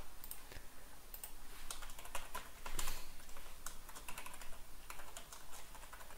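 Typing on a computer keyboard: a quick, irregular run of keystroke clicks.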